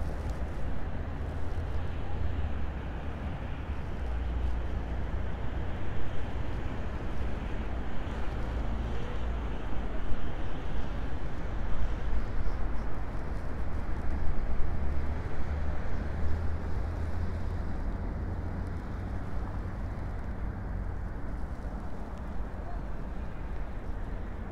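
Wind buffeting the microphone outdoors: a low, uneven rumble that swells and eases, with a few louder gusts in the middle.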